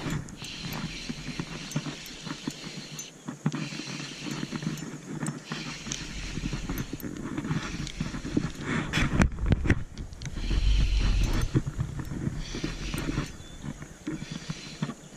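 Spinning fishing reel being cranked by hand, with rapid clicking and rustling handling noise close to the microphone. Low rumbles come twice, about six and about eleven seconds in.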